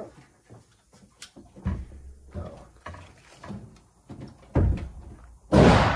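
Knocks and clunks of .22 rimfire cartridges, ammunition boxes and a rifle magazine being handled on a shooting bench. Near the end comes a single loud, sharp gunshot, the loudest thing here, with an echoing tail, from another shooter on the range.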